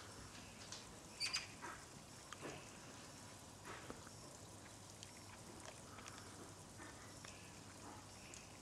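Faint, short, harsh calls from young Eurasian magpies, the loudest a quick double call about a second in, with a few softer ones later.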